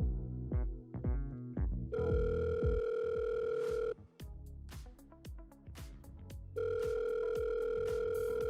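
Instrumental pop music plays, then a steady electronic telephone ring tone sounds twice, each about two seconds long with a pause of about two and a half seconds between. It is the ringing of an outgoing call as the GSM doorbell phones the owner.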